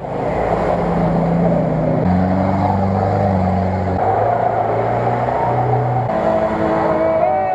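Off-road 4x4 engines, a UAZ-469 among them, running hard at high revs while ploughing through deep mud, each engine note steady and jumping abruptly to a new pitch every couple of seconds.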